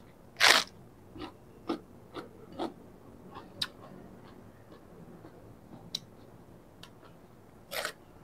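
Bite into a raw cabbage head, close to a clip-on microphone: one loud crunch about half a second in, then chewing with a run of smaller crunches, and another loud crunch near the end.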